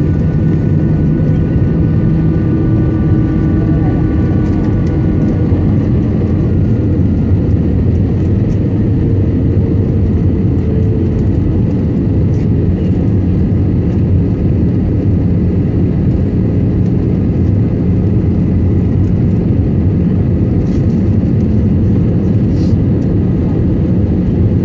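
Steady cabin roar inside a jet airliner on its landing approach: engine and airflow noise heard from a window seat over the wing. Faint steady high whines fade out about ten seconds in.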